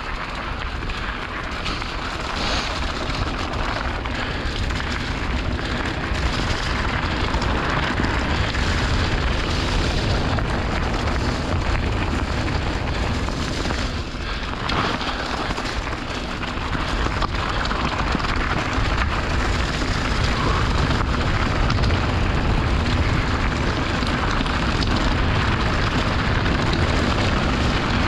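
Wind buffeting the microphone of a point-of-view action camera on a mountain bike riding fast downhill, with the tyres crunching and the bike rattling over loose gravel and stones. The noise eases briefly about halfway through, then picks up again.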